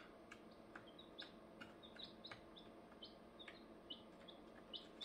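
Four-day-old chicks and ducklings peeping softly: short, high, falling peeps, a few each second, with a few faint clicks among them.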